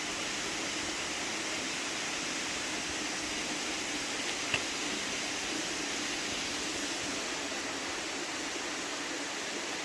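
Steady rush of water from Honey Run waterfall, with one faint click about four and a half seconds in.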